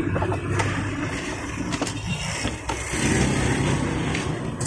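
A steady low engine hum from an unseen running vehicle, with a few light knocks and rattles as the timing belt cover is worked loose.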